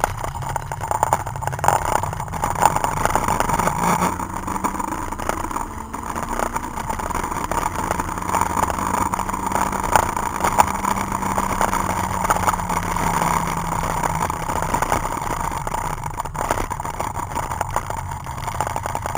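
Citroën Saxo VTS's four-cylinder engine heard from inside the cabin under hard driving, with tyre and road noise. The engine note climbs about four seconds in, holds high, then eases down in the second half.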